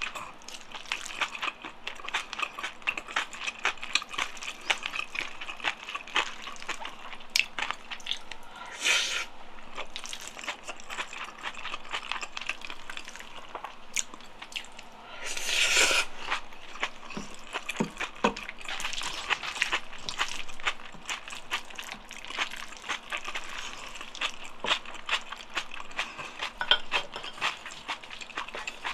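Close-miked wet chewing and mouth smacking of jjajang black-bean-sauce noodles and rice, with many small clicks throughout. Two longer, louder wet slurping noises stand out, about nine and sixteen seconds in.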